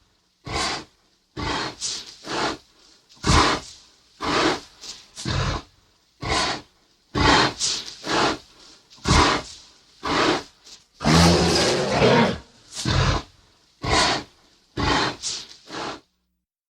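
Sharptooth's animated Tyrannosaurus rex roar and growl sound effects, played as a run of short separate roars about a second apart, some in quick pairs, with one longer roar about two thirds of the way through. They stop shortly before the end.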